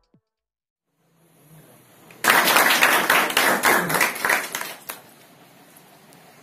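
A group of people clapping for about three seconds, starting about two seconds in, in welcome as a garland is presented.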